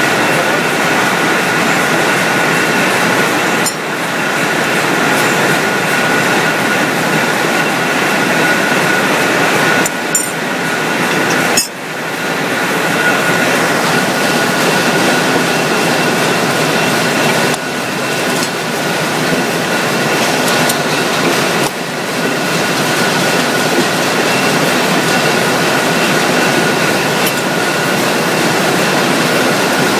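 Wire drawing machine running: a loud, steady mechanical noise with a steady high-pitched whine as its capstan drum turns and pulls wire through the die.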